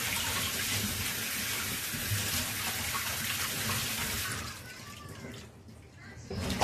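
Water from a kitchen tap running into a stainless steel sink as cucumbers are rubbed clean under it; the flow stops a little over four seconds in, and a short knock sounds right at the end.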